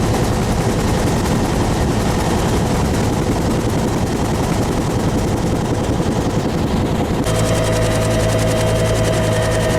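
Helicopter running close by, with a rapid, steady, even beat. About seven seconds in the sound changes abruptly and a steady whine and a low hum come up over it.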